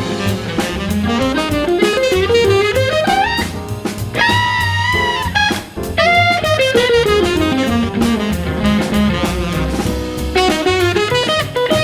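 Jazz blues: a fast, winding solo line, a transcribed saxophone solo, over bass and drums, with quick runs up and down and one held high note around the middle.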